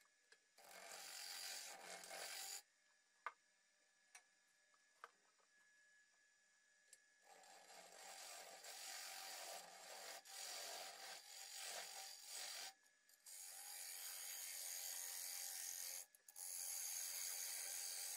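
Box elder bowl being worked on a wood lathe: four stretches of dry rubbing, each a few seconds long, with short pauses and a few light clicks between them, over a thin steady whine.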